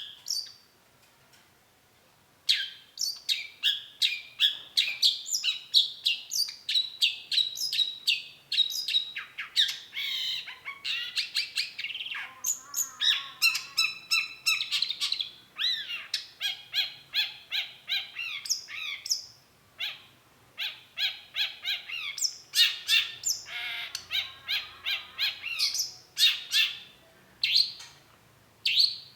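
Long-tailed shrike singing a fast, varied run of sharp chirps, whistles and short trills. The song starts a couple of seconds in and pauses briefly about two-thirds of the way through.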